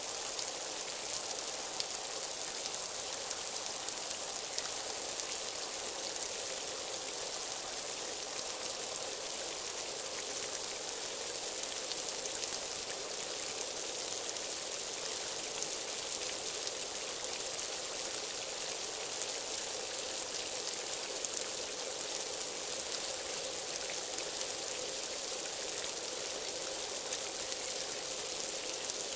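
Steady hiss of heavy rain, even and unbroken, with a faint steady hum underneath.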